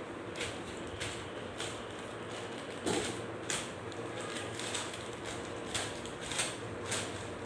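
Plastic courier mailer bag being cut and torn open along its side: a string of short crinkling, scratchy slices about every half second.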